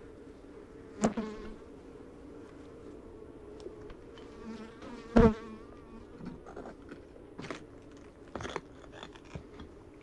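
Honeybees buzzing around their hive with a steady hum. Single bees fly close past the microphone about a second in and again, loudest, about five seconds in, a bee warning the intruder off. A few light knocks come in the second half.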